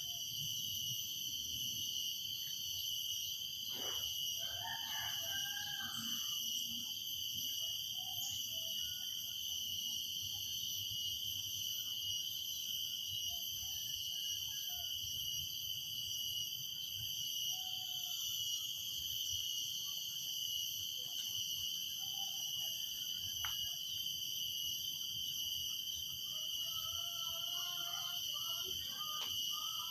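Cicadas droning steadily in several high, unbroken bands, with scattered short bird calls over them: a cluster about four seconds in and a run of calls near the end.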